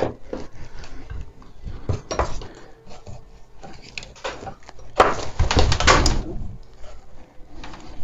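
Handling noise from multimeter test leads and a cable being gathered and moved on a desk: light clicks, knocks and rustling, with a louder stretch of rustling and knocks about five seconds in, lasting about a second.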